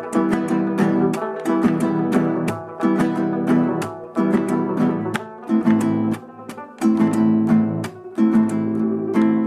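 Background music: acoustic guitar strumming chords, with a couple of short breaks.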